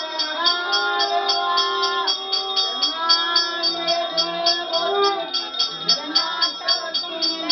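Puja hand bell rung steadily at about four to five strokes a second during an aarti lamp offering, over voices singing a long-drawn devotional chant.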